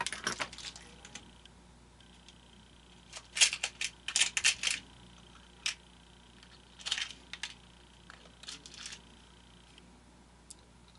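Small plastic gears clicking and rattling together as they are handled and sorted by hand, in several short clusters of light clicks.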